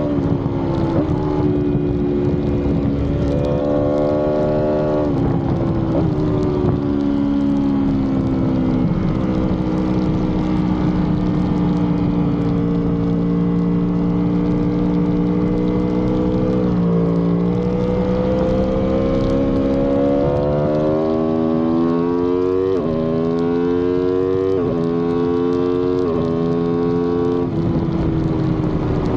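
2018 Aprilia RSV4's V4 engine running hard through a track lap, its pitch climbing and dropping in steps with the gear changes, over steady wind rush at speed.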